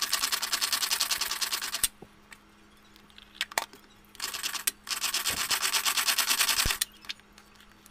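Hand-pulled string food chopper, its cord pulled to spin the blades through tomatoes, with a rapid clicking ratchet. There are two runs of pulling: one stops about two seconds in, and another runs from about four seconds to nearly seven, with a few single clicks in between.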